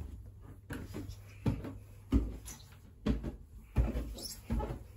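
Footsteps climbing bare wooden stairs: a steady series of heavy thuds, about one every two-thirds of a second.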